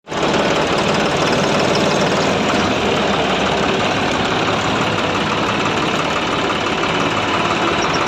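An engine running steadily at idle, loud and unchanging.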